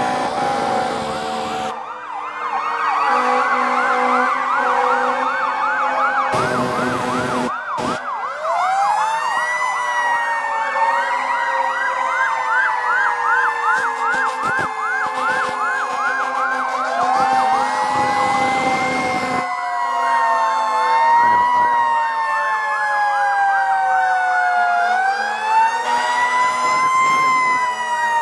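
Several fire engine sirens sounding at once from trucks passing in a line: a fast warbling yelp through the first third, and slow rising-and-falling wails overlapping throughout. Two loud short bursts of noise cut across, about six seconds in and again about eighteen seconds in.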